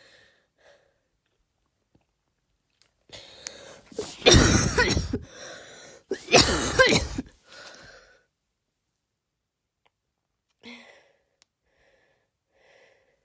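A woman's deliberate, forced coughs, attempts at a barking cough: a breath in, then two loud, harsh coughs about four and six seconds in, each about a second long, with a weaker one trailing after. Quiet breathing follows.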